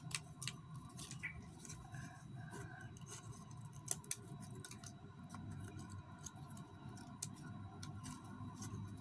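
Faint, scattered sharp snips and clicks of a small hand cutting tool trimming a rose apple (jambu mawar) stem cutting, spaced irregularly, over a low steady background hum.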